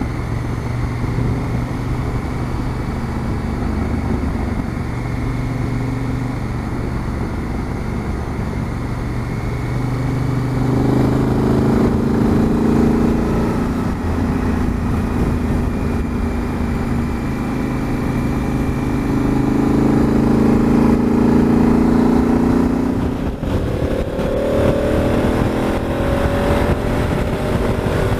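Honda Africa Twin motorcycle engine running at road speed, with wind rush. The engine note climbs as the bike accelerates, about ten seconds in and again around twenty seconds. It drops briefly, then climbs again near the end.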